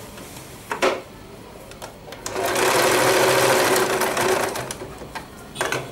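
Electric sewing machine running for about two seconds, stitching a seam, with a short knock about a second in and another near the end.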